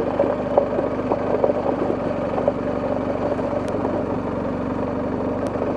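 BMW R1250GS Adventure's boxer twin engine running at a steady engine speed while the motorcycle is ridden.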